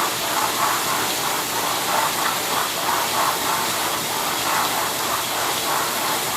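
Dishwasher running its wash cycle, water jets from the spray arms spraying against the inside of the tub as a steady hiss with a fast, even pulsing about three times a second.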